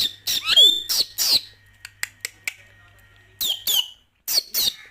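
Pet parrot giving a run of short, shrill squawks and chirps, in two bursts with a quieter gap of about a second and a half between them.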